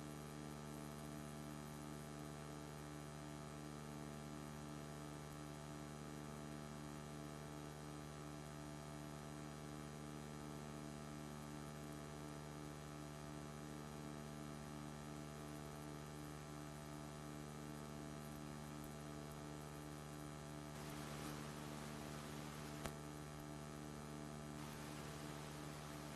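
Faint, steady electrical mains hum with several overtones. A faint hiss rises about three-quarters of the way through, with one small click in it.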